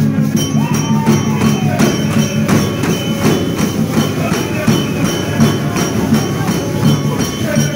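Music with a fast, even percussion beat of about four strokes a second over low sustained notes, played for dancing fans.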